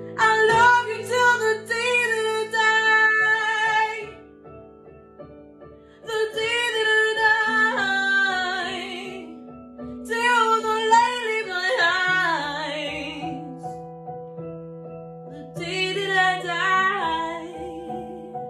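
Music: a woman singing in four drawn-out phrases over held keyboard chords.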